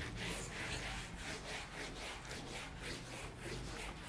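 Whiteboard being wiped clean with an eraser in quick back-and-forth rubbing strokes, about four a second.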